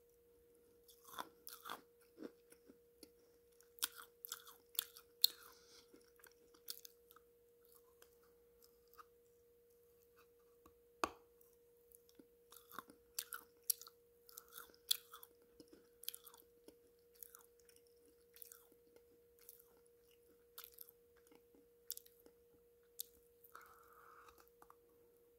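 Close-up mouth sounds of a person biting and chewing hard pieces of dried black clay-pot paste: irregular crisp crunches and clicks, with a faint steady hum underneath.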